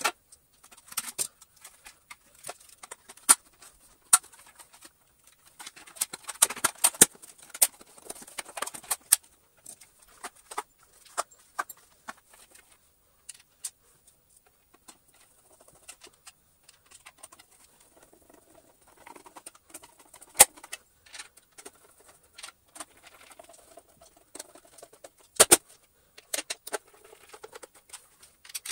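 Irregular clicks, taps and rattles of the Gtech AirRam's plastic housing parts being handled and fitted together by hand, with a few sharper knocks.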